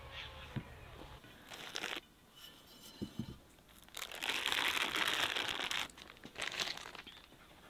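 Baking paper being peeled off the underside of a baked cake: a loud papery rustle and crinkle lasting about two seconds, starting about halfway through. A couple of soft knocks come just before it, and a shorter crinkle follows.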